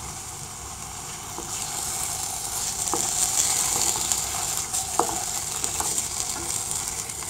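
Thick pumpkin halwa sizzling in a spoonful of just-added ghee in a pan while it is stirred with a wooden spatula. The sizzle grows louder about a second and a half in, with a couple of light spatula knocks against the pan.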